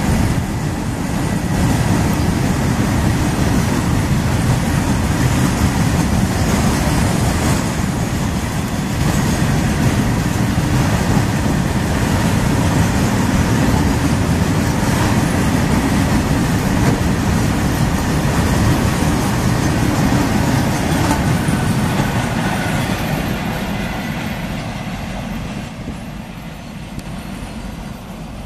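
A long rake of open freight wagons rolling past close by: a steady rumble and clatter of steel wheels on the rails. It dies away over the last few seconds as the brake van at the tail of the train comes by.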